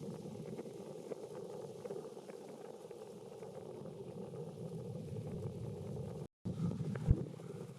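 Farm tractor engine running steadily in the distance, a low drone, with a brief break about six seconds in and a sharp knock just after.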